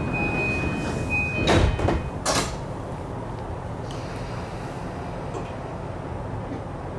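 Sliding doors of an E235 series commuter train closing, with a steady high warning tone and then two heavy knocks as the door panels shut, the second the louder. After that there is a steady low hum from the standing train.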